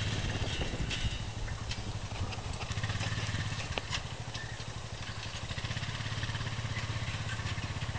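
Small farm tractor's engine running steadily with a fast, even low pulse, and a few faint clicks.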